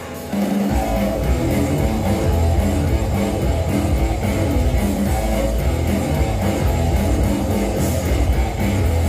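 Dance-battle music starting up with a strong, steady beat, the low end coming in just after the first notes.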